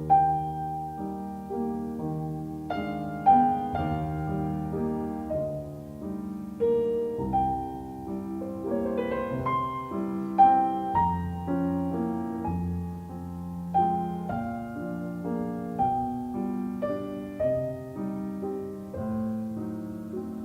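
Background score of slow, gentle solo piano, chords and melody notes struck one after another and left to ring.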